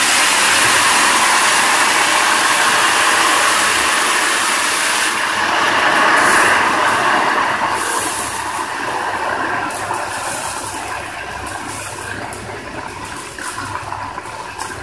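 Hot ghee and melted sugar sizzling loudly in a karahi as a splash of water hits it. The hiss holds strong for the first several seconds, then slowly dies down with scattered crackles.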